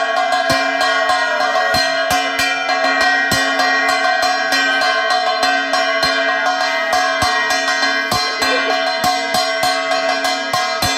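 Metal puja bells ringing continuously, struck rapidly and irregularly several times a second over a steady layer of held ringing tones, as at an aarti.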